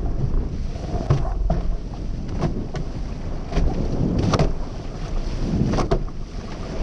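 Wind buffeting the microphone over rushing water as a racing catamaran sails fast through chop, with sharp splashes and slaps of spray from the hulls striking waves every second or so.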